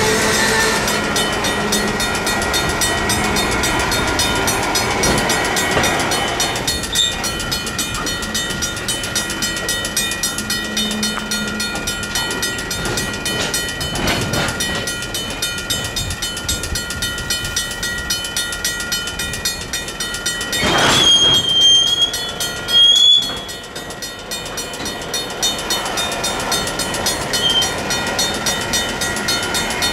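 Railroad crossing warning bells ringing continuously in rapid strokes, a Safetran mechanical bell and a WCH electronic bell, while a train's rail cars roll through the crossing. About 21 seconds in comes a short, loud, high metallic squeal.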